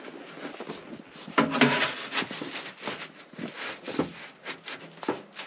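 A section of metal stovepipe being worked down onto a chimney stub through a canvas tent's roof jack by hands in leather gloves: irregular scraping and rubbing of metal, glove and canvas, loudest about one and a half seconds in.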